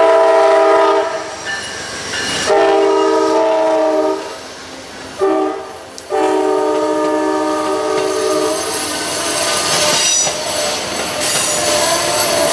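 Locomotive air horn sounding a chord of several notes in the grade-crossing signal. The end of one long blast is followed by a second long blast, a short toot and a final long blast, warning of a train nearing a road crossing. The train's rolling noise then rises as it passes.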